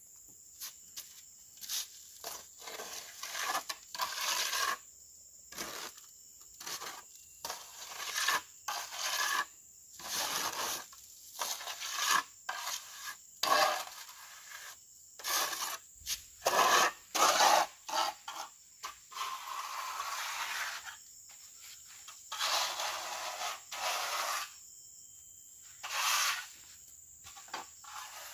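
A steel plastering trowel scraping and rubbing cement mortar onto the base of a masonry wall, in many short irregular strokes with occasional sharp clicks. A few longer smoothing strokes come about two-thirds of the way through and near the end. The work patches render that rising damp has broken away.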